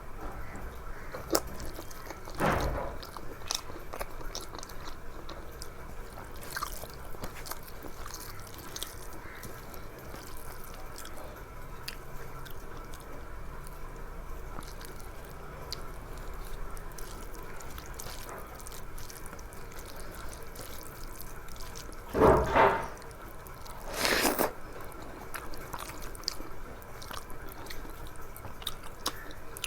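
Close-miked eating sounds: chewing, wet mouth clicks and smacks while eating rice with dal by hand. There is a louder crunch about two seconds in and two more close together near the end.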